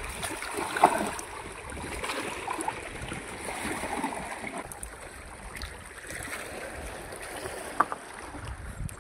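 Shallow water sloshing and lapping against shoreline rocks as a large fish in a mesh net is handled at the water's edge, with two sharp knocks, one about a second in and one near the end.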